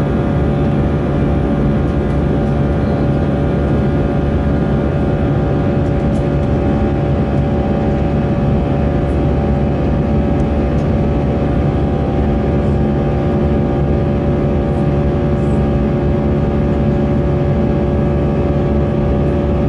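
Airliner cabin noise during the climb after take-off: a steady jet-engine drone and airflow rush, with a few constant hum tones running through it.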